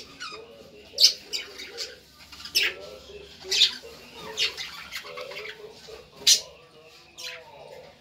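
A flock of budgerigars chattering: sharp, high chirps every second or so over a lower, continuous warbling.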